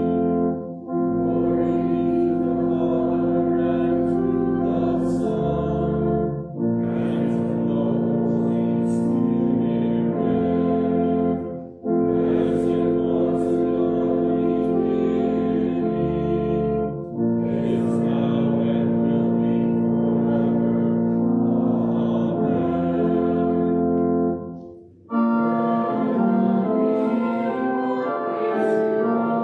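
Organ playing a slow hymn tune in held chords, phrase by phrase, with short breaks between the phrases.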